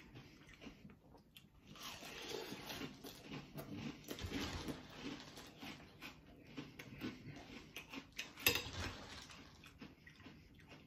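A person chewing and crunching mouthfuls of Cap'n Crunch's Crunch Berries cereal in milk, in an irregular run of crackly bites, with a sharper click about eight seconds in.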